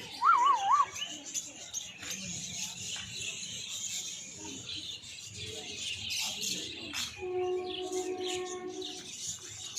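Many small birds chirping continuously in the background, with a short warbling call just after the start and a steady held tone lasting about two seconds near the end.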